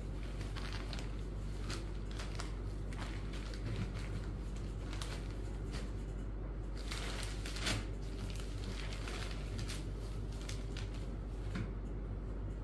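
Printed cotton sarees being handled, folded away and spread out on a wooden table: irregular rustling and swishing of the cloth, with a louder rustle a little past halfway. A steady low hum runs underneath.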